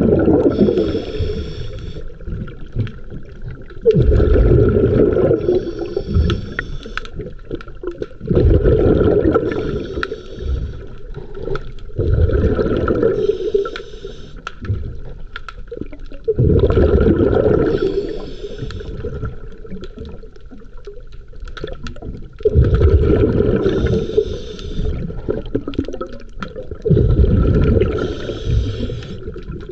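Underwater recording beneath a docked boat's hull: water surges and sloshes around the microphone in repeated swells about every four to five seconds, over a faint steady high tone.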